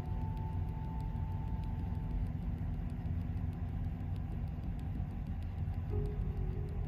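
Truck engine running, a steady low rumble.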